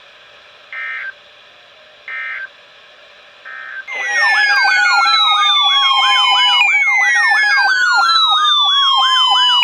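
Emergency Alert System broadcast: three short digital data bursts of SAME tones, about a second and a half apart, then, about four seconds in, a loud electronic siren-style alert tone starts, with long falling wails layered over a fast warbling yelp, announcing a severe thunderstorm warning.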